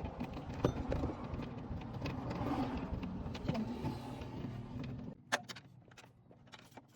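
A machine running steadily with a low hum, cutting off about five seconds in, followed by a few light clicks.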